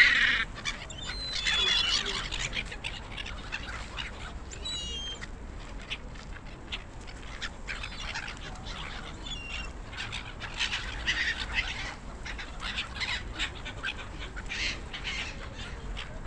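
A flock of gulls calling: many short, harsh squawks and cries, loudest and thickest in the first two seconds, then quieter scattered calls throughout.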